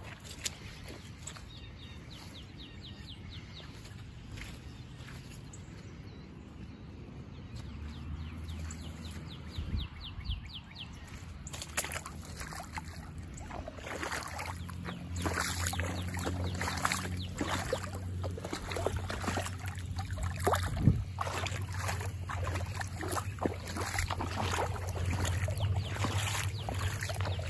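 Storm runoff water flowing and splashing through a flooded yard, with irregular splashes that grow busier about halfway through over a steady low rumble.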